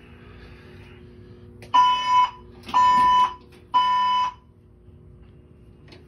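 Fire alarm voice evacuation system sounding its evacuation tone: three beeps of one steady tone, each about half a second long and a second apart, the temporal-three pattern that signals building evacuation.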